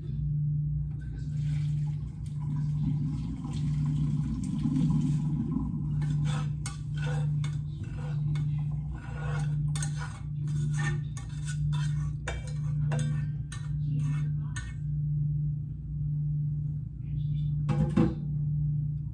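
Kitchen clatter of dishes and utensils: a hiss for the first few seconds, then a run of quick clinks and knocks, and one louder knock near the end, over background music with a low beat pulsing about once a second.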